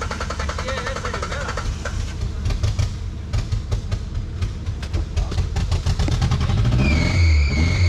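A 4x4's engine revving hard under load on a steep muddy climb, climbing in pitch near the end as a steady high whine joins it. In the middle comes a quick run of sharp clicks and knocks.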